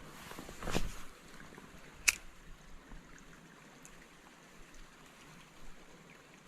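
Faint steady trickle of creek water, with a brief swell of noise just under a second in and one sharp click about two seconds in.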